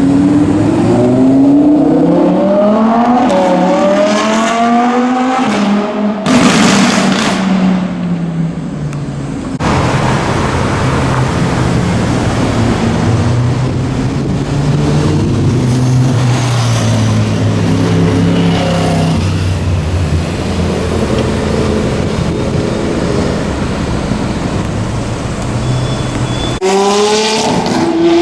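Supercar engines on a city street, in several cuts. A car accelerates through the gears, its pitch climbing repeatedly. Then comes a long stretch of a low engine note running at low speed with the pitch wandering, and near the end another car accelerates with a rising note.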